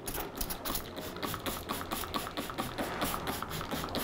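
Trigger spray bottle of hair-bond booster pumped over and over in quick succession, several sprays a second, misting the additive into freshly mixed bleach.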